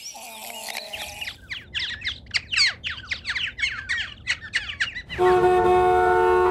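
A fast run of high, falling bird squawks, about five a second. About five seconds in it gives way suddenly to a loud, steady, horn-like blare of several held tones.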